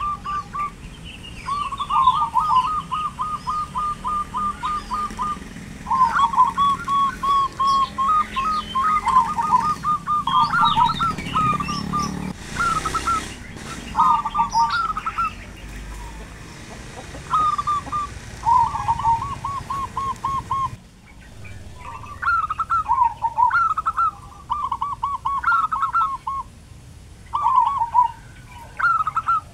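Zebra doves (perkutut) singing: repeated phrases of fast staccato cooing pulses broken by higher slurred notes, with small birds chirping faintly above. A brief rush of noise comes a little before the middle, and about two-thirds through the background drops away abruptly while the calling goes on.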